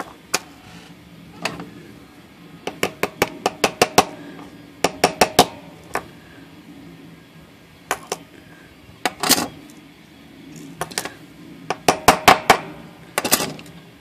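Runs of sharp metallic clicks, several a second, with a few single clicks between them: the brass mainspring barrel of an Underwood Noiseless typewriter being worked as its cap is centered and pressed back on.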